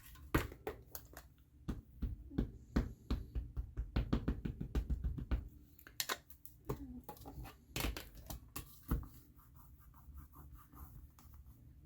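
Quick light taps and clicks of a stamp and ink pad being handled and inked on a craft table, with a fast run of tapping about four to five seconds in and a few firmer knocks near the middle.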